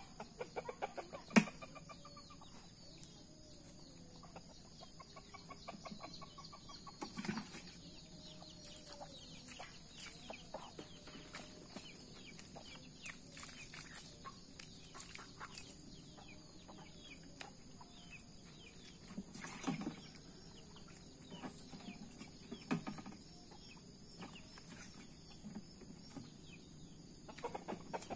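Chickens clucking, with scattered clicks and knocks; a sharp knock about a second and a half in is the loudest sound.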